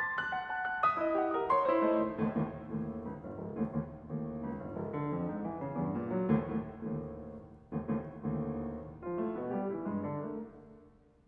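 Grand piano playing a solo piece. It opens with a loud run of quick notes that settles into softer sustained chords, has a fresh attack about eight seconds in, then dies away near the end.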